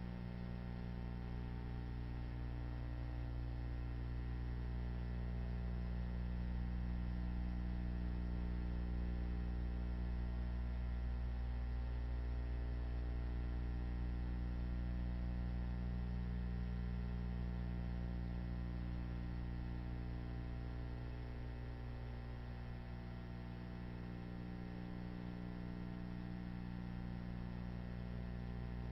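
Steady low electrical hum with a buzzy edge, unchanging throughout, with no other sound.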